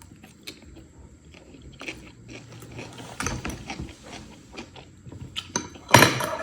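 A person taking a bite of food and chewing it close to the microphone, with scattered small clicks and a sharp clatter near the end.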